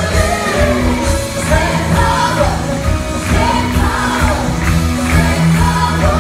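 Live worship band playing: a group of male and female singers over acoustic and electric guitars, keyboard and drums.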